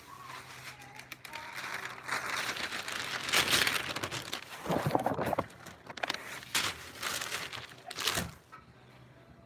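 Close, irregular rustling and crinkling with a few light knocks, loudest in the middle, as things are handled and moved about.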